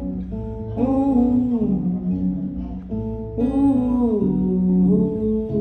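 Acoustic guitar song accompaniment with a voice singing two wordless, sliding phrases, one about a second in and another past the three-second mark.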